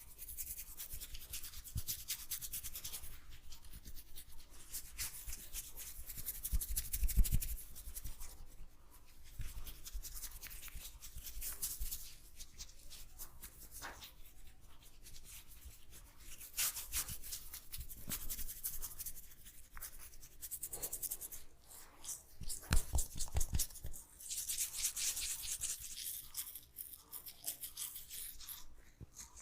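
Hands massaging an oiled scalp, fingers rubbing through wet, oily hair with a fast crackly rustle. There are louder dull knocks about a quarter of the way in and again about three-quarters through.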